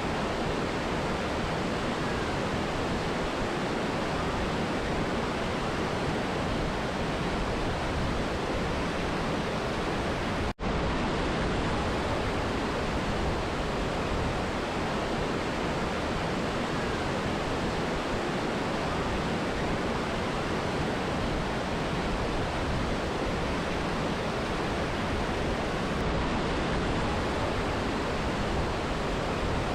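Steady rushing of a mountain river and waterfall, an even wash of water noise. It cuts out for an instant about ten seconds in.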